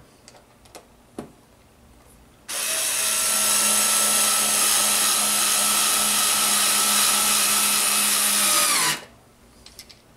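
Battery-powered driver running steadily for about six seconds, driving a screw into a wall anchor in plaster to fix a bracket. It starts about two and a half seconds in and winds down in pitch as it stops near the end, with a few light handling clicks before and after.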